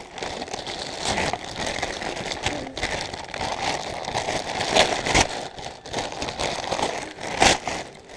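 Gift wrapping paper being torn and crumpled by hand close to the microphone: a continuous rustle broken by sharp rips, the two loudest about five and seven and a half seconds in.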